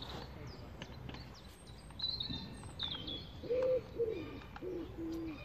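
Small birds chirping, then a pigeon cooing from about halfway: a run of low, repeated coos, the later ones lower in pitch.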